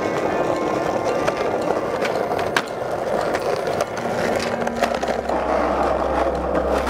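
Skateboard wheels rolling over rough concrete, with a sharp clack about two and a half seconds in. A low steady rumble joins from about five seconds in.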